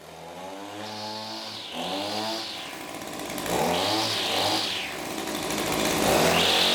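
Echo 2620T string trimmer's small two-stroke engine running, revved up and let back down several times.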